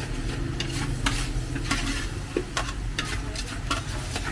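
Metal ladle stirring chili sauce in an aluminium wok, the sauce sizzling, with several sharp scrapes and clicks of the ladle against the pan over a steady low hum.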